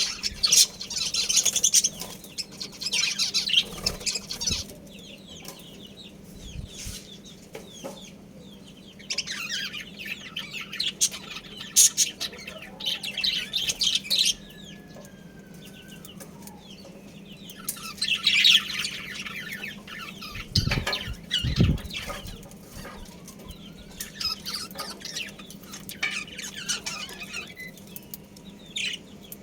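Budgerigars chirping and chattering in bursts of rapid, high warbling, with quieter pauses between bursts. A steady low hum runs underneath, and two low thumps come about two-thirds of the way through.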